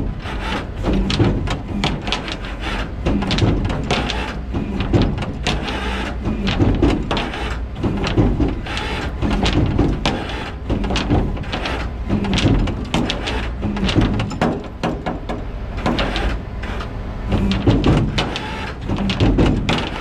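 Rollback tow truck running with its bed hydraulics and winch working, a steady low engine hum under many irregular metallic clanks and knocks as the wrecked car shifts on the bed.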